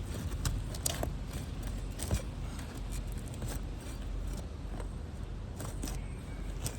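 Scattered clicks, scrapes and creaks of hand work on an asphalt roof shingle as it is pried up for a repair, over a steady low rumble.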